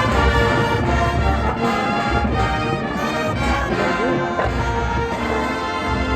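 Marching band playing a loud brass fanfare, with many sustained chords.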